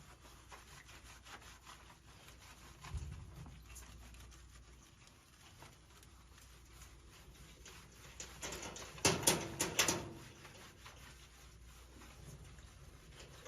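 Faint rubbing and rustling of hands working shampoo into a dog's dry coat, with a loud cluster of sharp clicks and rattles about nine seconds in.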